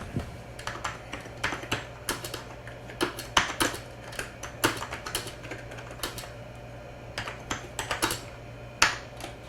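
Typing on the Amiga 2000's computer keyboard: irregular quick key clicks, several a second, with short pauses, over a steady low hum.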